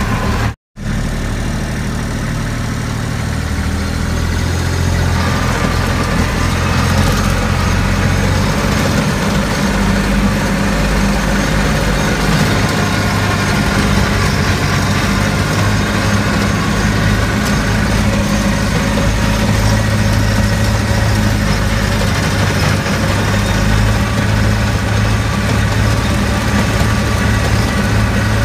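A small farm tractor's engine runs steadily as the tractor drives along, heard from the driver's seat. The sound cuts out for an instant about half a second in.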